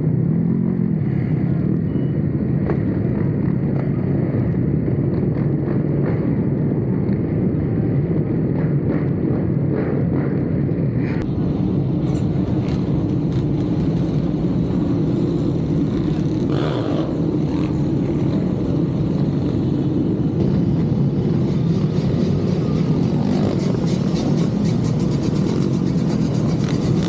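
Motorcycle running steadily at speed, its engine heard with the road and wind noise of riding.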